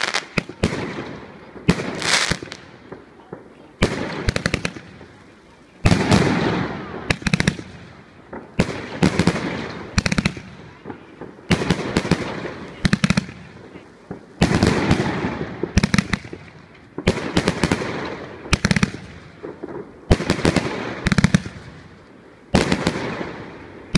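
A large mixed-calibre firework cake (30, 38 and 50 mm tubes) firing in rapid volleys. Clusters of sharp bangs come every second or two, and each fades away before the next.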